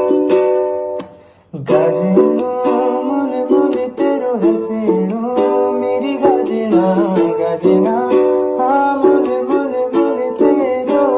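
Music: a Pahadi song's instrumental passage of strummed plucked strings, ukulele-like, with a melody over the chords. It breaks off briefly about a second and a half in, then picks up again.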